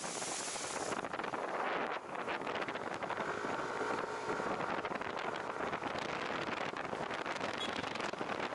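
Wind buffeting the microphone of a motorcycle-mounted action camera, mixed with the hiss of tyres and spray on a rain-soaked road while riding at speed in heavy rain. A brighter burst of hiss in the first second as water splashes up over the windscreen.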